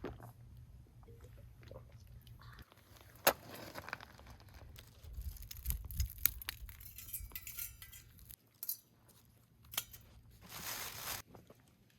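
Scattered light clinks and knocks of small hard objects being handled, with a brief burst of rustling near the end.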